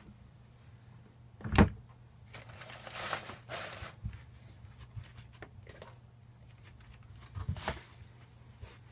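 Hand-handling noises from lightsaber hilt parts being worked apart: a sharp knock about a second and a half in, a stretch of scraping and rubbing, then another pair of knocks near the end, with small clicks between.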